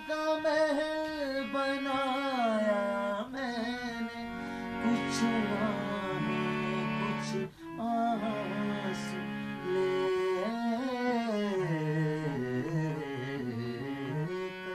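Man singing slow, wavering held notes over the steady sustained chords of a harmonium.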